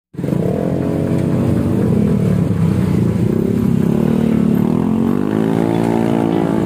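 Honda Scoopy scooter's single-cylinder engine running through an aftermarket SKR racing exhaust, the revs rising as it pulls away about five seconds in.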